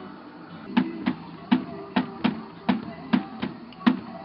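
Hand percussion: a hand striking a drum in a steady beat of about two to three strokes a second, each a short pitched thump with a sharp slap, starting about a second in.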